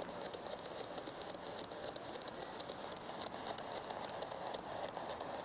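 Ghost box (spirit box) scanning through radio stations: a steady static hiss with rapid, irregular clicks, several a second.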